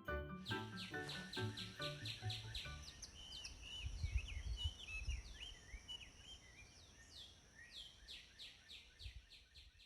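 Small birds chirping and whistling: a quick run of short falling chirps with warbling whistles between them, over a faint outdoor background with low rumbles around the middle. Light music fades out in the first couple of seconds.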